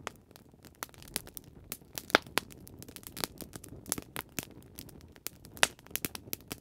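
Wood fire crackling: irregular sharp pops and snaps, several a second, a few louder than the rest.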